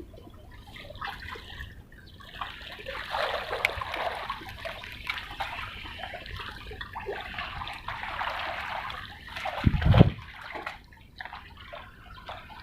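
Water sloshing and splashing irregularly, with a single dull thump about ten seconds in.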